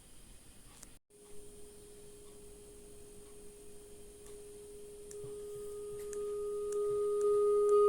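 A steady mid-pitched pure test tone sounds from about a second in and gets louder in several steps. A fainter higher tone joins it about five seconds in.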